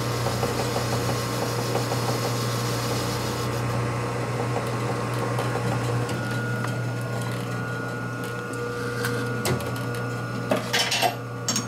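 Metal lathe running with a steady motor hum, its cutting tool turning down a small metal collar, with a cutting hiss over the first few seconds. About ten and a half seconds in come a few sharp clicks and knocks as the lathe's controls are handled.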